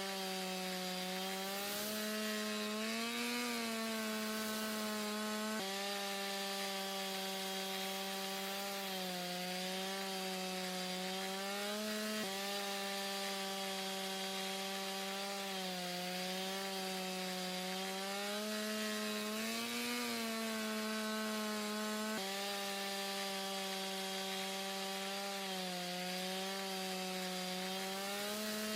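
Unidentified buzzing signal received on 89.3 MHz FM through an SDR receiver: a steady buzz near 200 Hz with a row of overtones that sounds like a chainsaw, its pitch wavering slowly up and down and jumping abruptly three times, over constant radio hiss. It turns up on this frequency whenever sporadic-E propagation opens.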